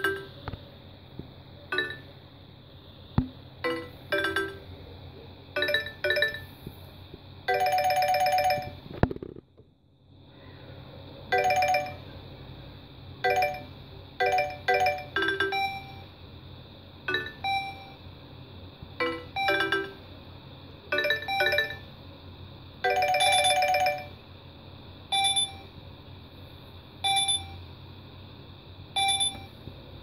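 Nokia 5200's built-in speaker playing a polyphonic alert tone from its notification-tones list: a string of short, bright chime notes with two longer held chords, one a third of the way in and one about three quarters in, and a brief pause between them.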